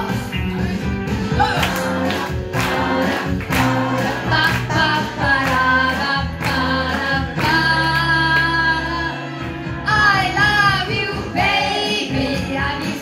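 A woman singing into a handheld microphone over accompanying music with a steady beat, her voice amplified through the venue's speakers.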